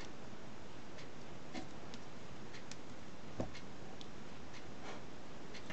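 Faint light clicks over a steady hiss, a little under one a second, with one sharper tap about three and a half seconds in: a small amplifier circuit board and its heatsink being handled and fitted by hand.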